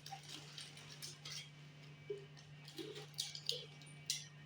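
Faint scattered clicks and light taps over a steady low hum.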